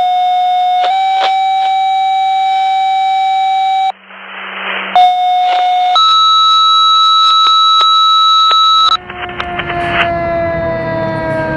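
Two-tone fire dispatch paging tones: a one-second tone stepping up to a longer three-second tone, a second of radio hiss, then a second pair whose long tone is much higher. About nine seconds in, a fire engine's siren takes over, its pitch slowly falling, over the rumble of the truck's engine.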